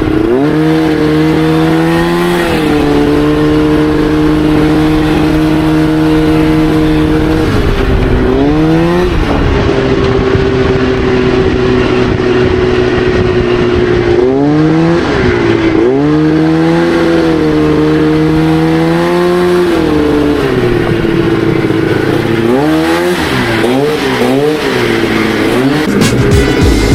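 Crosskart buggy engine running hard around a track: its pitch climbs as it accelerates, holds steady for several seconds at a time, then drops and climbs again three or four times, with a quick run of ups and downs near the end.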